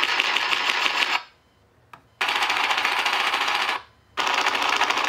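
Simulated tank machine-gun fire from an RC tank sound board's small speaker: three bursts of rapid fire, each a second or two long, with short pauses between.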